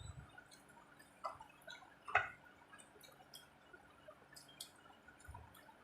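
Quiet eating sounds: scattered soft mouth clicks and smacks of chewing, with a sharper click about two seconds in.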